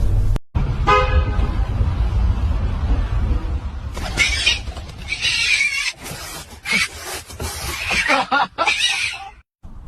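A brief horn-like toot about a second in over a low rumble, then a cat yowling and meowing loudly in a string of short cries.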